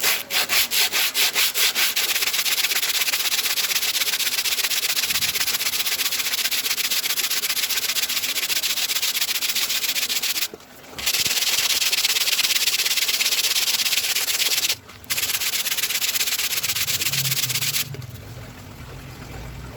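Sonokeling rosewood being hand-sanded with coarse 60-grit sandpaper on a plywood block. It starts as quick rasping strokes, about six a second, then becomes a fast continuous rasp with two brief pauses, and stops near the end.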